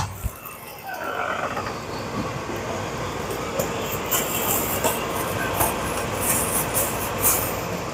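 A plastic produce bag holding washed greens crinkling as it is handled, over a steady rushing noise that sets in about a second in.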